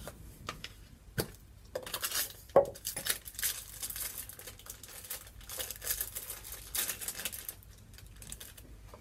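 A tub of bicarbonate of soda being opened and handled over a plastic mixing bowl: a few sharp clicks and knocks in the first three seconds, then several seconds of crinkling and rustling.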